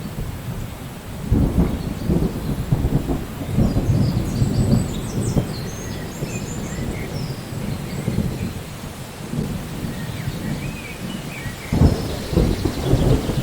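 Thunder rumbling in rolling swells, loudest about a second in and again near the end, over a steady hiss of rain. Birds chirp briefly twice in the middle.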